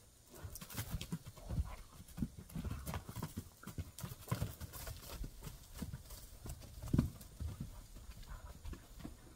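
Hooves of a Fjordlinger horse and a donkey pounding dry dirt as they chase each other at play: irregular, uneven thuds begin about half a second in, with the loudest thud about seven seconds in.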